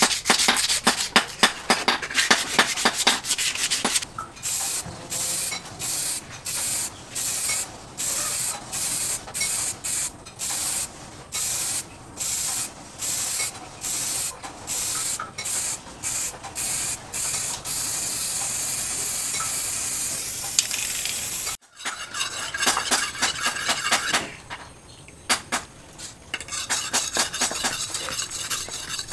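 Hand sanding of wood for a few seconds, then an aerosol spray can sprayed in short hissing bursts, about one and a half a second, ending in a steady spray of a few seconds. After a cut, a knife blade is scraped back and forth on a sharpening stone.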